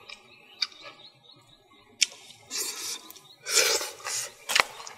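Close-up wet mouth sounds of a man eating fish with his fingers: a few sharp smacking clicks and, in the middle, two longer hissing slurps.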